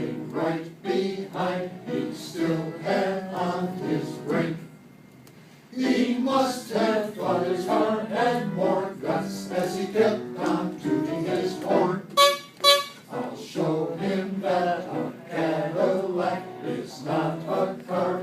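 Choir singing with piano accompaniment, stopping for about a second near the start, with two short, loud percussion accents about two-thirds through.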